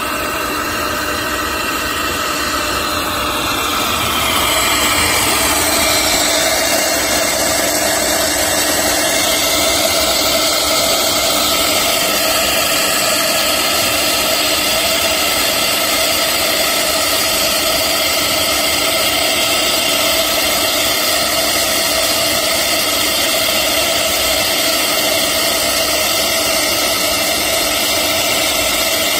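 JCUT CNC router's spindle running at steady high speed while a tapered engraving bit carves a relief into MDF: a steady whine over cutting noise. A few gliding tones come from the machine's moves in the first seconds, and it grows louder about four seconds in.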